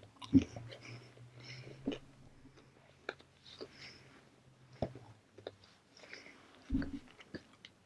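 Chewing a toasted maple French toast English muffin: soft, scattered crunches and wet mouth clicks, with a dull low thump about half a second in and another near the end.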